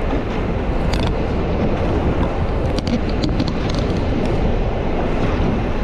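Wind buffeting the microphone over a low, steady rumble, as on a moving boat, with a few sharp clicks about a second in and a cluster of them around three seconds in.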